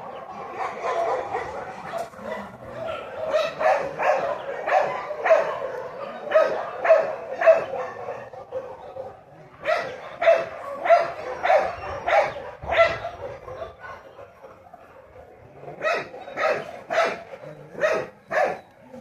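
Dog barking repeatedly in quick runs of two or three barks a second, with short lulls about eight seconds in and again around thirteen to fifteen seconds in.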